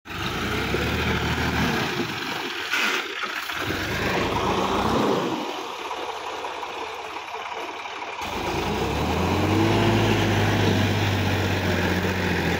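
Sonalika DI-50 RX tractor's diesel engine working under load as it pulls through wet mud and climbs a bank. The engine note grows louder and steadier about two-thirds of the way through.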